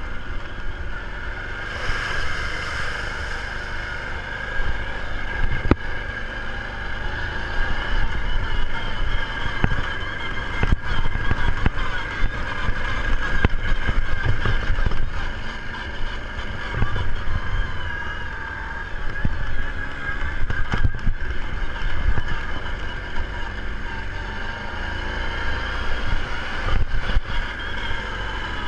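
ATV engine running as the quad is ridden along a trail, its note holding fairly steady over a low rumble, with a few sharp knocks.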